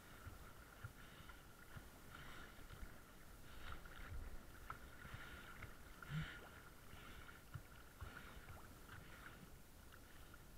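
Faint, muffled sea water sloshing and lapping against a camera riding at the sea surface, with a few soft knocks.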